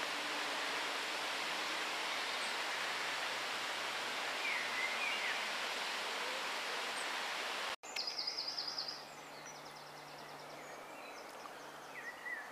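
Steady, even outdoor background noise with a few faint bird chirps. It cuts off abruptly about eight seconds in and gives way to quieter surroundings, with a rapid high trill and a faint low steady hum.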